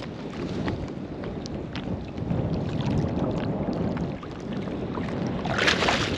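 Water lapping with wind on the microphone while a hooked redfish is fought; near the end the fish thrashes and splashes at the surface close by.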